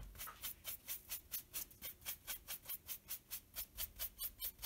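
A sponge rubbed quickly back and forth over vegetable-tanned leather, working in a lacquer-like water-protective finish: an even run of short swishing strokes, about four or five a second.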